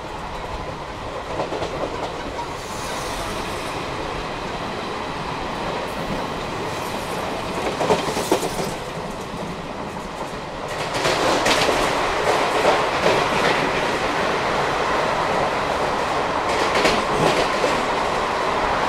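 ICF passenger coach wheels running over the track at speed, with a steady rumble and a clickety-clack of wheel beats. There is a sharp clatter about eight seconds in, and the track noise grows louder and harsher about eleven seconds in.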